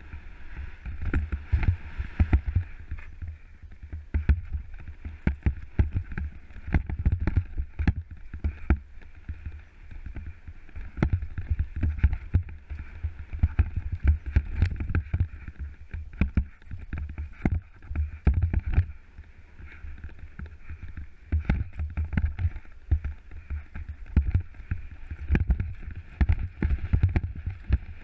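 Scott Gambler 10 downhill mountain bike ridden fast over a rocky trail, picked up by a helmet-mounted GoPro: a constant rumble of wind and tyres with many sharp knocks and rattles as the bike hits rocks and roots.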